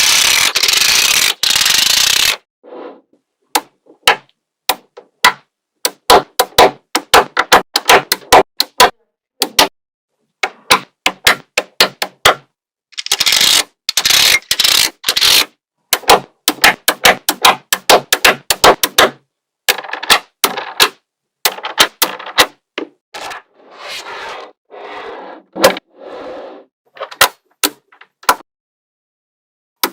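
Small neodymium magnetic balls clicking sharply as they snap together one after another, with two stretches of dense rattling as a clump of balls is shaken or spread out, one at the start and one about halfway through.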